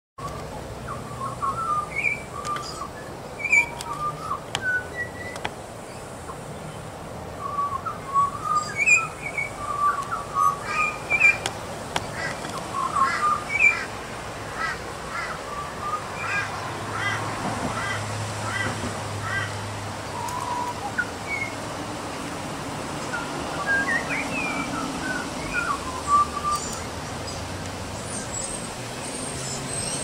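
Young Australian magpie calling and warbling: a string of short chirping notes, some gliding up and down, with a quicker run of notes in the middle.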